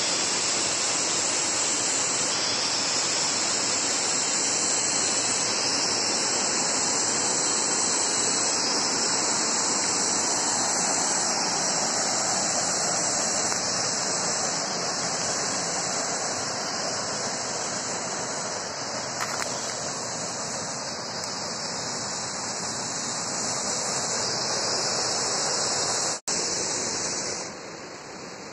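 Steady, loud rushing hiss of outdoor ambience in a bamboo forest. It has a bright high band over it, breaks off for an instant near the end, then thins out.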